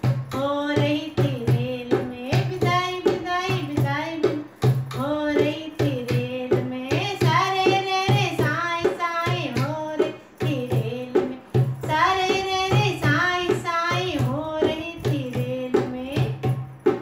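A woman singing a Hindi banna-banni wedding song solo, accompanying herself on a dholak with a steady repeating beat.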